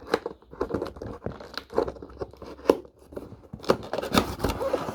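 A cardboard box being opened by hand: irregular rustling scrapes, crinkles and sharp clicks of cardboard and packaging.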